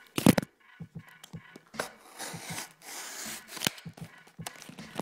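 Plastic blister packaging of a yo-yo being pried and torn open: a loud crack about a quarter second in, then crinkling and rustling with scattered clicks.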